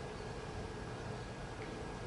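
Quiet room tone in a theatre: a steady hiss with a faint hum, with no distinct sound standing out.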